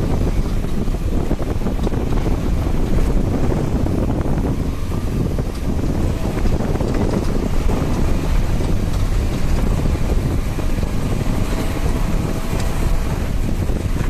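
Steady low rumble of wind buffeting the microphone as it travels forward along a road.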